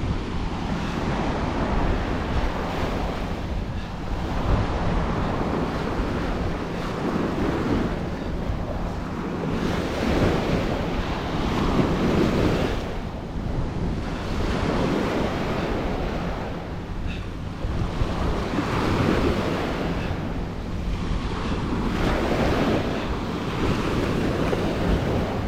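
Ocean waves breaking and washing on a beach, a continuous surf that swells and ebbs every few seconds.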